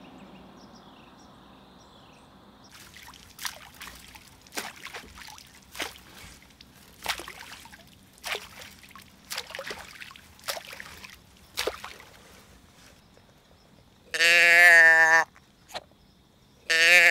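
Splashing and crackling at about one step a second, made to imitate a deer walking through swamp water, followed by two loud wavering blasts on a handheld deer grunt call.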